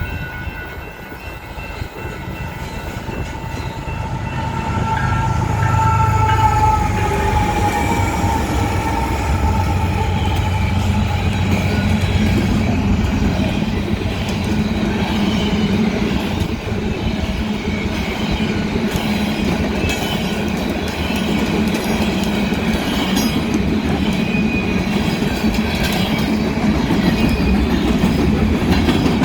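Union Pacific diesel locomotive leading a coal train past: its horn sounds a chord for about the first ten seconds, dropping slightly in pitch as it passes, then the locomotive's engine rumble and the cars' wheels clicking over the rails carry on. Through it runs a crackling, popping sound, as if something sticky were on the rails.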